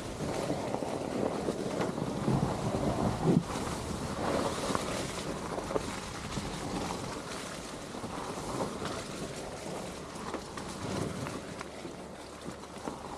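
Steady rumbling wind noise on the microphone, with a few louder thumps between about two and three and a half seconds in.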